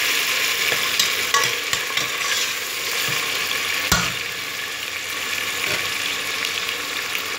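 Chopped tomato and onion frying in hot oil in a stainless steel pot, a steady sizzle that eases slightly as a spoon stirs through it. There is one sharp click about four seconds in.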